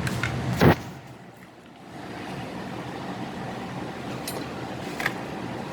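A single sharp, loud knock about a second in, then steady low background noise with one small click near the end.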